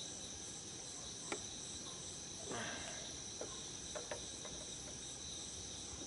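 Night insects, likely crickets, chirping in a steady high-pitched chorus with a slight pulse. A few light clicks and a brief rustle around the middle.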